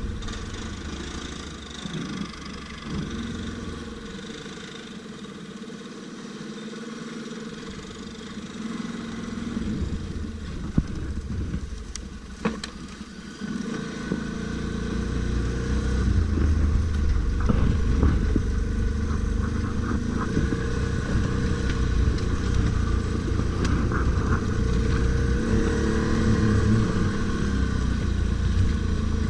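ATV engine running off-road, subdued for the first half, then louder from about halfway through as it is driven harder. Two sharp knocks sound shortly before the engine picks up.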